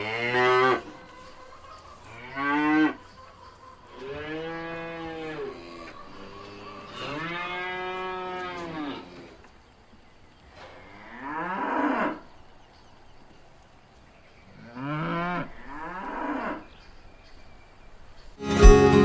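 Cattle mooing: about seven separate calls spread over the stretch, some short and some long with a pitch that rises and falls.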